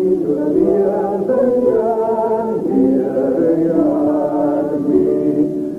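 A Gaelic song being sung, with long held notes that step and slide from one pitch to the next.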